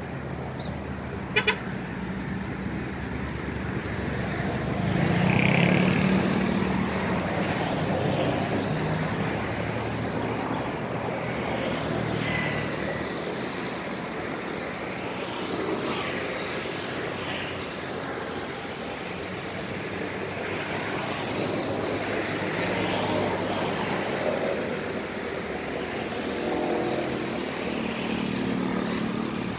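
Road traffic: a steady wash of passing vehicles whose engines and tyres rise and fall, with the loudest pass about five to seven seconds in.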